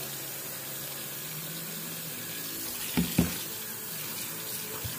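Kitchen faucet running steadily into a plastic tub of soapy, soaking fiber in a stainless steel sink, with two short knocks close together about three seconds in.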